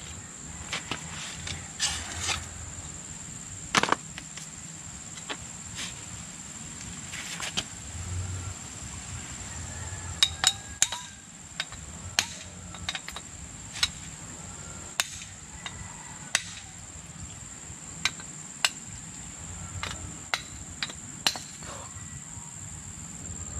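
Repeated sharp metallic taps and clicks of a knife blade working against the crown cap of a glass soda bottle, prying it off without a bottle opener. A steady high insect buzz runs underneath.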